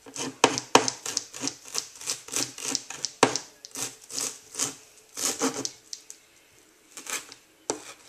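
Chef's knife chopping fresh parsley on a plastic cutting board: quick, even knocks of the blade on the board, about three or four a second. The chopping stops for about a second, then starts again near the end.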